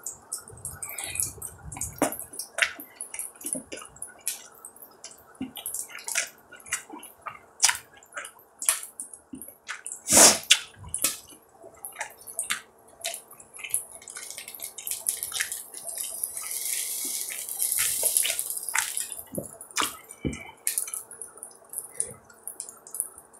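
Beef rib meat sizzling on a hot iron griddle plate, with a steady hiss and many irregular crackles and pops of spattering fat. One pop about ten seconds in is the loudest, and the hiss swells louder for a few seconds past the middle.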